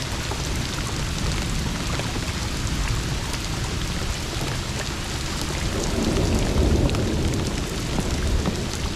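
Heavy rain falling: an even hiss dotted with small drop ticks, under a low rumble that swells about six seconds in.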